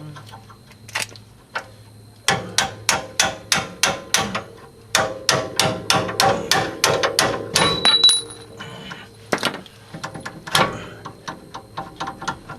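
Hammer blows on metal during a CV axle replacement: a fast run of strikes, about three a second, then a few spaced heavier blows and lighter taps near the end.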